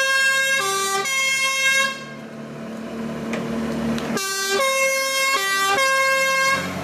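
Electronic jingle of buzzy, stepped notes, each about half a second long. It plays once, pauses for about two seconds, then repeats.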